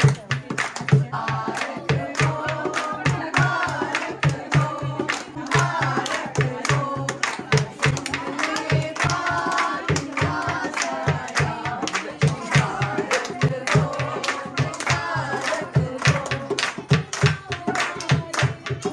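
Dholak hand drum beaten in a steady rhythm, with voices singing dholki songs along with it from about a second in.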